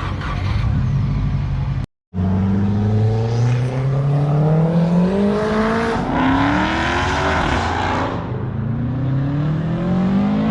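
A car engine accelerating hard through the gears: its pitch climbs steadily and drops back at the gear changes, about four and six seconds in. Before this, after a cut, the engine runs at a steady note.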